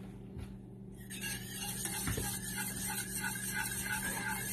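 Wire whisk stirring a cream sauce in a stainless steel saucepan, its wires scraping against the metal pan. The scraping starts about a second in and runs on steadily.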